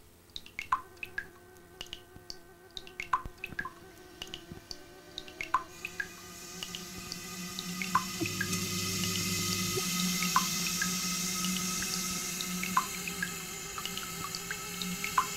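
Musique concrète soundtrack: scattered, irregular drip-like plinks over several held steady tones, with a hiss that swells from about six seconds in.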